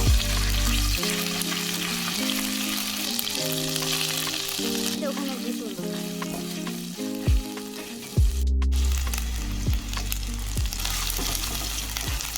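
Food sizzling as it fries in a hot pan for chowmein, a steady sizzle that drops out briefly about eight seconds in, under background music.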